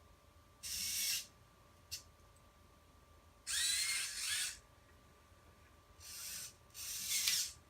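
Hobby servos moving the 3D-printed robot hand and wrist: four short whirring bursts, each under a second, with a single click about two seconds in and a faint steady hum from the powered electronics underneath.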